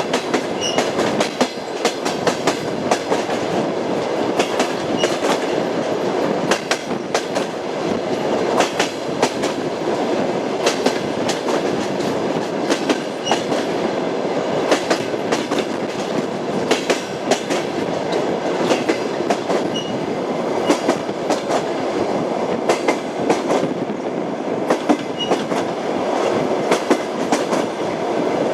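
Train wheels clacking over rail joints as the train runs along: a steady rumble with frequent sharp clacks.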